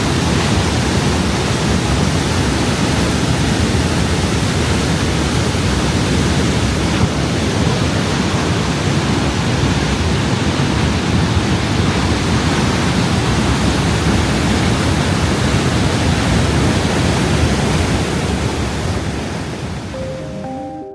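Steady, loud rush of Niagara Falls' water, an even noise heaviest in the low end, fading down over the last couple of seconds.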